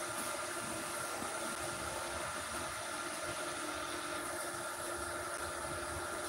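Inverter MIG welder idling with no arc struck, its cooling fan running as a steady whir with a few faint, steady whining tones.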